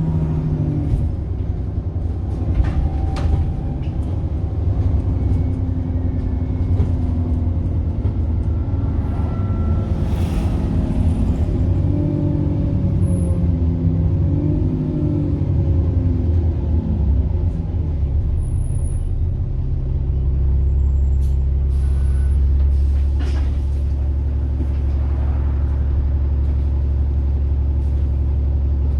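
Diesel bus engine with a whining turbocharger, its pitch rising and falling as the bus accelerates and slows, then settling into a steady low idle about twenty seconds in.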